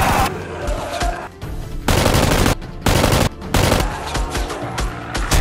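Rapid automatic gunfire in several short bursts, each under a second, over background music.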